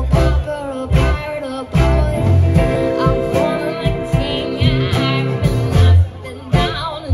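A live band playing a song: a singer over electric guitar, strong bass notes and drums.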